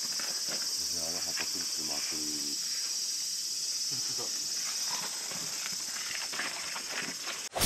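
Insects shrilling in a steady high chorus, with faint voices about a second in; a sharp click near the end, where the sound cuts off abruptly.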